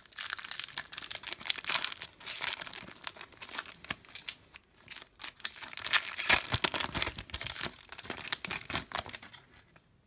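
Foil wrapper of a Pokémon TCG Breakthrough booster pack crinkling and tearing as it is torn open by hand, a dense run of crackles that thins out and stops shortly before the end.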